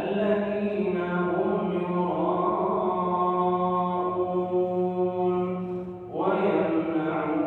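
A man chanting Islamic prayer in Arabic in long, held melodic phrases, with a new phrase starting about six seconds in.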